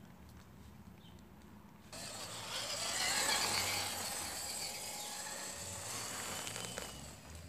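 An electric RC crawler truck's motor and gears whining as it drives, starting suddenly about two seconds in, with a rising pitch at first and then holding steady until near the end.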